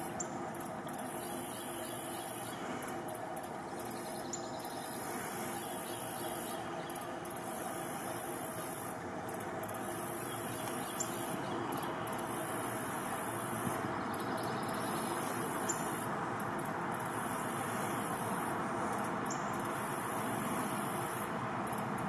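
Steady outdoor ambience: an even background hiss with a constant high shrill band, and a few faint, short high bird chirps every few seconds.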